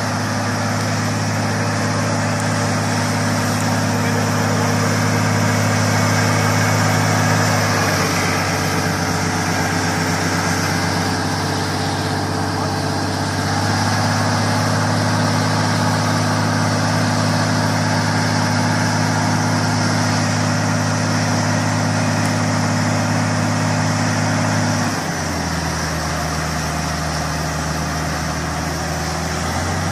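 A vehicle engine running at a steady speed, holding one pitch. The pitch shifts slightly about eight and fourteen seconds in, and drops lower about twenty-five seconds in.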